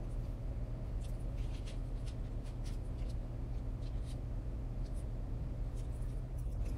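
Metal fork tines pressing and scraping into pastry dough on parchment paper, crimping the edges of a homemade pop tart: a string of short, light scratches over a steady low hum.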